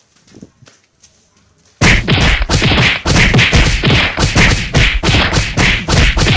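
A loud, rapid series of punch and thud sound effects, several blows a second, starting suddenly about two seconds in: a staged beating.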